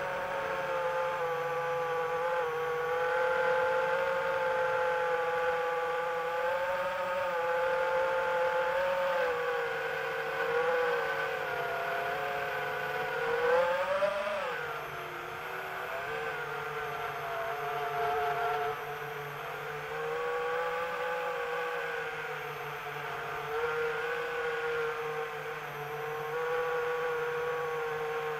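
Multirotor drone's motors and propellers whining steadily, the pitch drifting up and down with throttle, with a brief rising surge and drop about halfway through.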